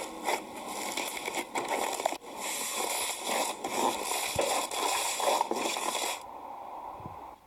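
Slime being squished and worked, a dense wet crackling with many small pops and clicks; it stops about six seconds in.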